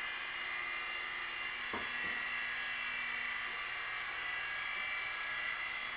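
Blade mCX coaxial micro RC helicopter hovering, its small electric motors and rotors giving a steady high whine. A single soft knock sounds about two seconds in.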